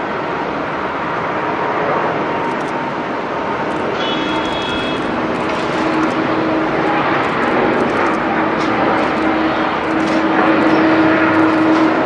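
Twin Rolls-Royce Trent XWB turbofans of a Japan Airlines Airbus A350-900 running at takeoff thrust, a steady jet-engine noise that grows louder as the airliner rolls, lifts off and climbs. A steady hum comes in about halfway through.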